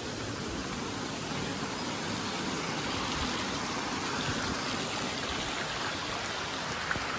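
Muddy, swollen mountain stream rushing steadily over rocks as a torrent.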